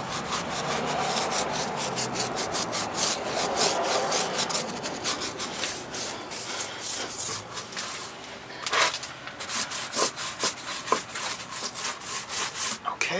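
Stiff nylon brush scrubbing a wet rubber tire sidewall: a fast, continuous run of scratchy back-and-forth strokes.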